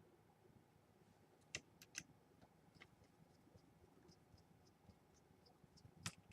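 Faint, sparse clicks and taps of small laptop parts being handled, with a few sharper clicks around two seconds in and the loudest near the end; otherwise near silence.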